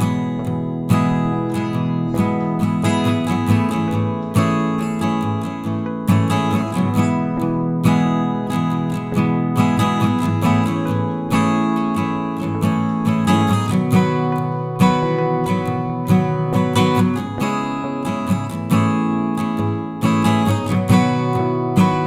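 Background music: acoustic guitar strummed and plucked at a steady pace.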